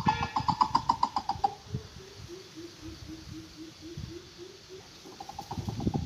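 Greater coucal giving its deep hooting call: a series of about a dozen low 'hoop' notes, roughly three a second, falling slightly in pitch. A faster, higher-pitched series of notes is heard at the start and again near the end.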